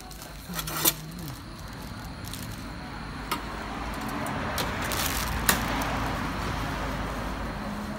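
Metal serving tongs clicking against stainless steel food trays a few times, over a rushing background noise with a low rumble that swells to a peak about five seconds in and then fades.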